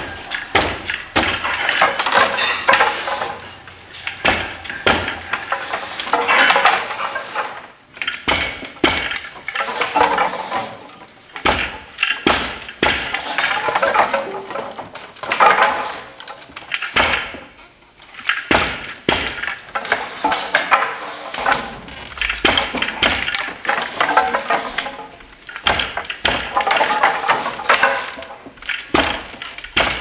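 Traditional Tai wooden treadle loom being worked: a busy clatter of wooden knocks and rattles as treadles, heddles and their hanging weights shift and the beater packs in the weft, swelling and easing every few seconds with the weaving cycle.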